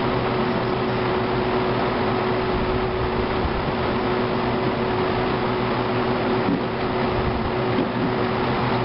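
Steady machine hum: a constant low tone over an even, airy rushing noise that does not change.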